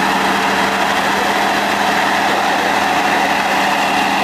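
Tatra 813 8x8 trial truck's diesel engine running at steady revs, loud and unchanging in pitch.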